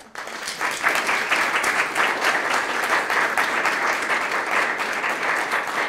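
Audience applauding: many hands clapping together, starting suddenly.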